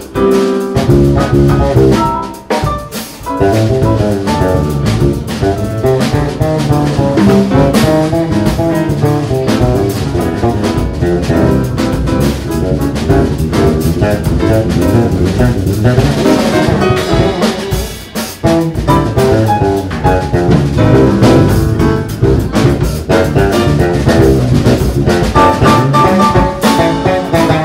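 A jazz piano trio playing live: piano, electric bass and drum kit.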